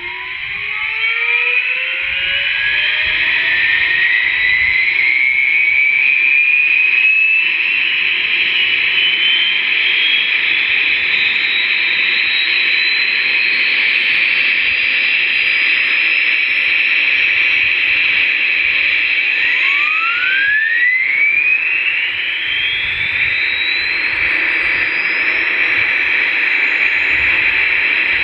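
UH-1 Huey turbine sound played by an RC sound module through a bare loudspeaker. A whine climbs in pitch over the first several seconds as the turbine spools up, then holds as a steady high whine over a loud hiss. A second rising whine comes in about twenty seconds in.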